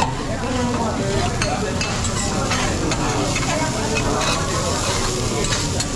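Food sizzling on a teppanyaki griddle, with metal spatulas clicking and scraping against the hot plate and diners' chatter behind.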